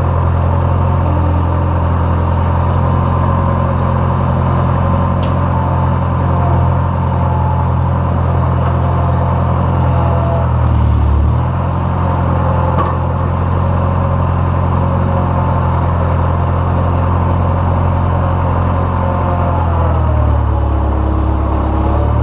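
Tractor diesel engine running steadily, its pitch shifting briefly about halfway through and again near the end.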